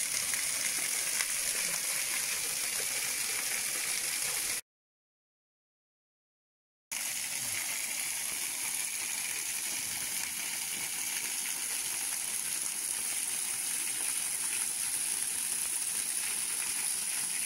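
Waterfall: a steady rush of falling water. The sound cuts out completely for about two seconds near the one-third mark, then resumes unchanged.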